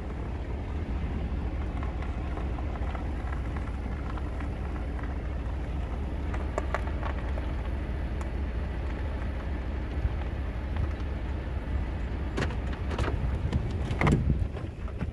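Pickup truck engine running with a steady low rumble as the truck creeps forward on gravel, pulling a tow strap to a boat trailer. Scattered clicks and crunches from the tyres on gravel, with a louder cluster and a knock near the end.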